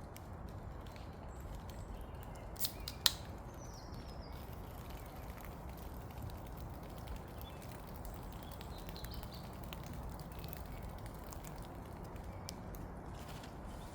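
Quiet outdoor background with a steady low rumble. About three seconds in there are two sharp clicks close together, the second louder, and a faint bird chirp follows.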